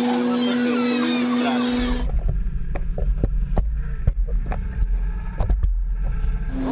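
A fishing boat's steady engine hum with gulls calling. About two seconds in it cuts to a muffled, deep underwater rumble with scattered sharp clicks and knocks, and the engine hum comes back just at the end.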